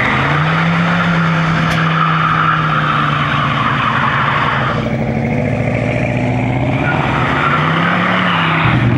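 Full-size Chevrolet pickup doing a burnout: the engine is held at steady high revs while the rear tyres spin and squeal on the tarmac. The tyre squeal dies away about five seconds in, and the revs rise briefly near the end.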